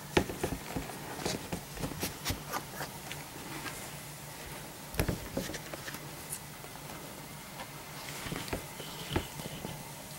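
Three-week-old Labrador Retriever puppies scrabbling and shuffling on a fluffy blanket: scattered light rustles, bumps and knocks, the loudest about halfway through, over a faint steady hum.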